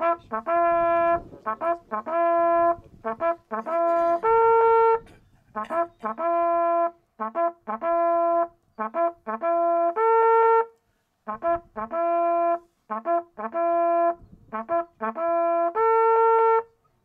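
Small coiled hunting horn sounding a hunting signal: three phrases of quick short notes, each ending on a held higher note.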